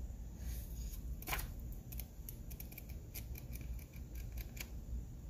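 Shrink-wrapped comic books being handled: plastic wrap and paper crinkling and rustling, with a run of quick light clicks and ticks in the second half.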